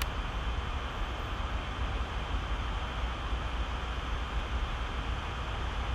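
Steady background hiss over a constant low hum, with no distinct sounds standing out.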